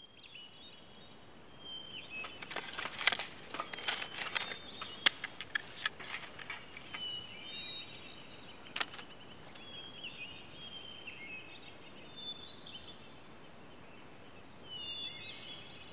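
Birds chirping and twittering outdoors, with a dense run of sharp clicks and crackles about two to five seconds in and one more sharp click near the middle.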